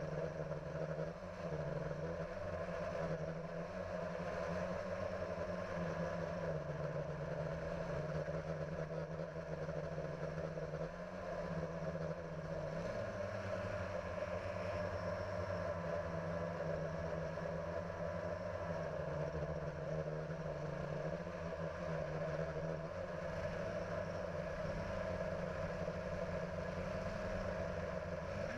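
Steady buzzing hum of a multirotor drone's electric motors and propellers, heard from the camera on the craft itself, its pitch stepping down and up a few times as the motor speeds change.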